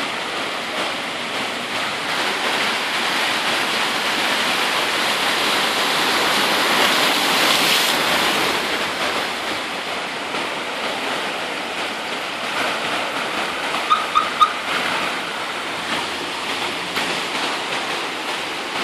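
Floodwater from the overflowing Lybid river rushing over a concrete curb and across asphalt: a steady wash of running water that swells slightly about seven seconds in, with a few short high blips near the end.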